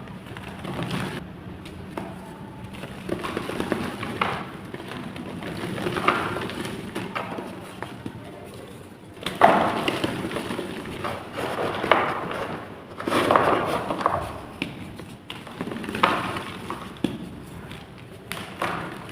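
Chalk clay blocks being crushed and crumbled, crunching and crackling in uneven bursts, the loudest from about halfway through.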